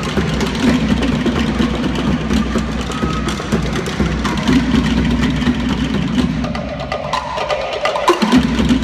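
Tahitian drum ensemble playing a fast rhythm: rapid clattering of wooden to'ere slit drums struck with sticks over a low drum beat. The low drum drops out briefly about seven seconds in and returns just before the end.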